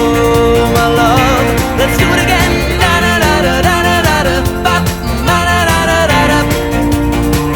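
Indie pop song between its sung lines: a sliding, wavering melody over a steady beat.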